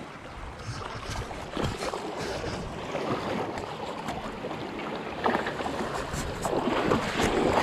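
Feet wading through shallow water over submerged rocks: irregular splashing and sloshing, getting louder near the end.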